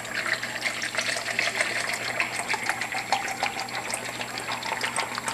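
Soy sauce pouring in a steady stream from a Kikkoman bottle into a plastic measuring cup, splashing and trickling as the cup fills.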